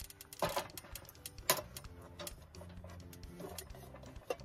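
Soft background music with sustained low notes and a light ticking beat. A few sharp clicks or knocks cut through it, about half a second in, about a second and a half in, and near the end.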